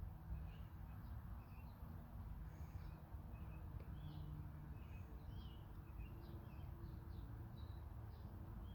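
Birds chirping here and there over a faint, steady low hum.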